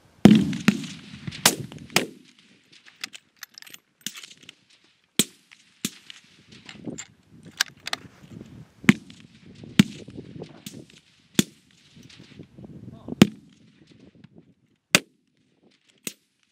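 Rifle shots from several shooters on a firing line, fired at uneven intervals and at varying loudness. One close shot about a quarter second in is the loudest, with a long echoing tail.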